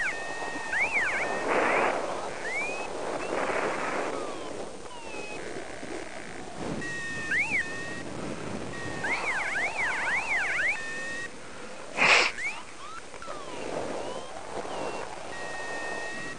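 Paragliding flight instrument (variometer) sounding electronic tones: spells of two steady high beeps broken by quick up-and-down warbling sweeps, over wind rushing on the microphone. A single sharp knock about twelve seconds in.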